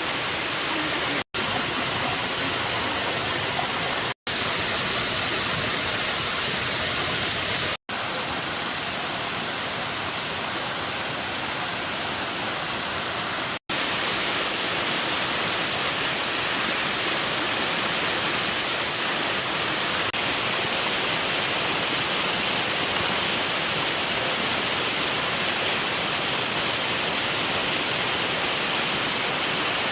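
Steady rushing of water, like a forest stream or heavy rain, with no distinct events. Four very brief dropouts cut the sound in the first half.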